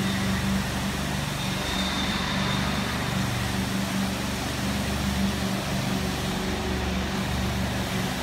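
Concrete pump's engine running steadily: a continuous low hum with a noisy background, feeding concrete through the hose.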